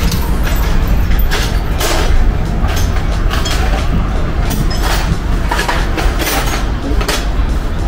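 Irregular metallic clicks and knocks of body-repair tools being handled, about a handful over several seconds, over a steady low rumble of workshop machinery.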